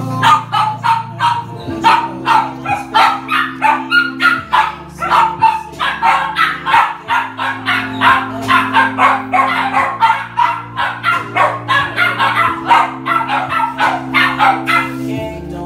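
A dog barking rapidly and without pause, about three barks a second, over background music with slow-changing held chords; the barking stops near the end.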